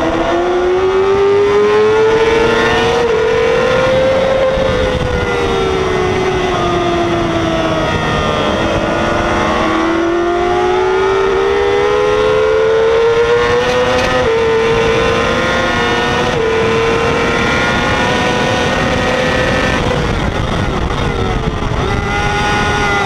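Onboard sound of a 2006 Yamaha R6's 600 cc inline-four engine at racing revs, its pitch climbing hard for the first four seconds, falling away until about eight seconds in, climbing again and holding, then dipping near the end before rising once more as the bike accelerates and slows through corners.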